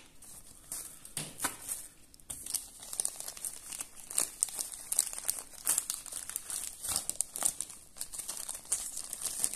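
Thin clear plastic bag crinkling as a stack of sticker sheets is handled and slid into it: irregular rustling crackles, sparse at first and busier from about two seconds in.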